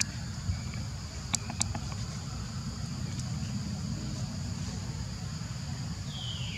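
Steady high insect drone with a low background rumble, two sharp clicks about a second and a half in, and near the end a short falling squeal from a young macaque.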